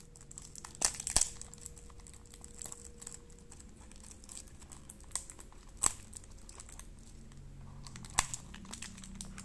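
Small cardboard Tomica toy-car box handled and opened by hand: light crinkling and rustling with sharp clicks of the card, the loudest about a second in, then again near the middle and near the end.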